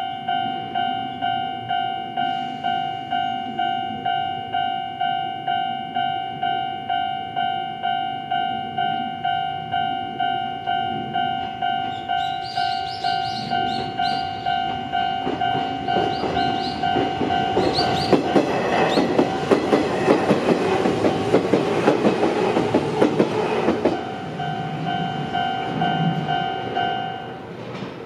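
Japanese level-crossing warning bell ringing steadily about twice a second as an Izuhakone Railway Sunzu Line electric train passes over the crossing. The train's wheels clack over the rail joints, preceded by a few short high squeals, and the bell stops near the end once the train has cleared.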